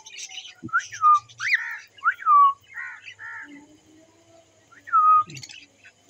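Small pet parrots (cockatiels and budgerigars) calling: four short whistles that each sweep sharply up and slide down, over faint high twittering.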